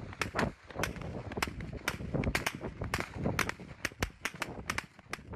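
Rapid, irregular gunfire, about three sharp shots a second.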